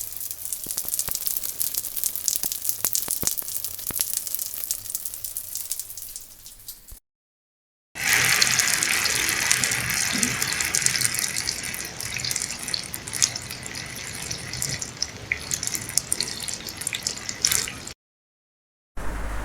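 Soft rain falling as two separate recordings: first a fine hiss of many small drop ticks that fades out about seven seconds in, then after a second of silence a fuller, brighter rain hiss that cuts off abruptly about a second before the end.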